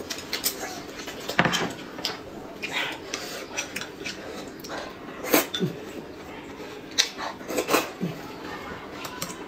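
Eating at a table: chopsticks clicking now and then against a ceramic bowl and a glass, mixed with the mouth sounds of chewing and sipping noodles and sauce. The clicks are scattered, the loudest a little past the middle and near the end.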